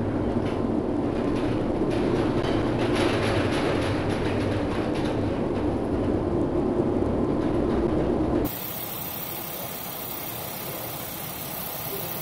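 Steady rumbling noise of storm wind and heavy sea aboard a container ship as waves break over the bow. Near the end it cuts off suddenly to a quieter steady hiss.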